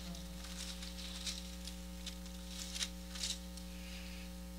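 Soft, brief rustles of thin Bible pages being turned, a few scattered through the pause, over a steady electrical mains hum.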